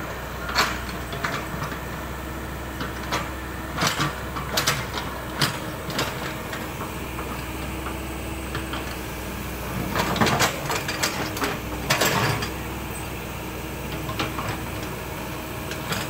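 Crawler mini excavator's diesel engine running steadily while its steel bucket digs into a rocky ditch, stones knocking and scraping against the bucket now and then, with a flurry of clattering about ten to twelve seconds in.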